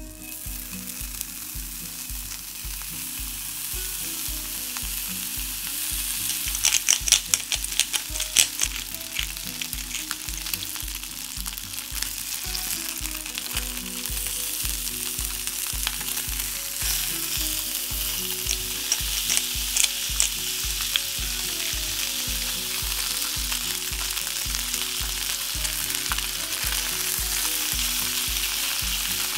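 Pork-belly-wrapped skewers frying in a hot cast-iron skillet: a steady sizzle that builds as the skewers are laid in, with bursts of crackling fat pops about seven to nine seconds in and again around eighteen to twenty seconds.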